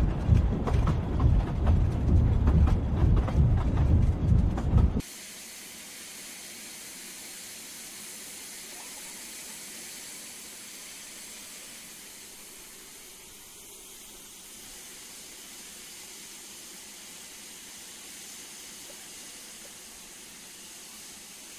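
A train rolling over rails with a loud, rhythmic rumble, which cuts off suddenly about five seconds in. It gives way to a steady, quieter hiss of steam from a steam locomotive.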